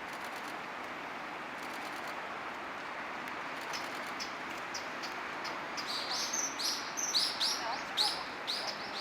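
Common kingfisher calling: a string of short, high calls that starts a few seconds in and comes thick and fast, loudest near the end, over a steady background rush.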